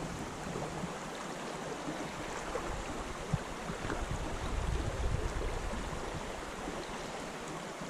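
Small spring creek's water running steadily over riffles, a continuous even rush, with a few soft low swells in the middle.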